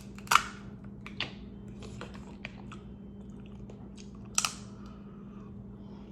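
Crab leg shells cracking and snapping as they are broken open and eaten, with smaller clicks and chewing sounds between. The loudest crack comes just after the start and another about four seconds in.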